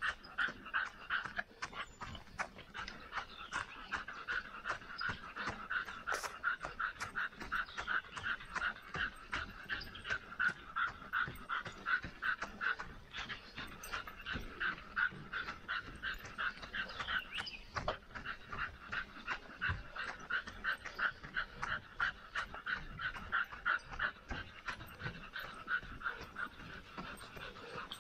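A dog panting quickly and steadily, about three breaths a second, while running on a hot day, with light footfalls.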